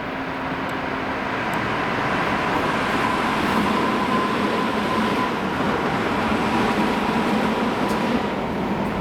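Electric commuter train passing on the rails, its running noise building over the first couple of seconds and easing near the end, with a steady high tone running through it.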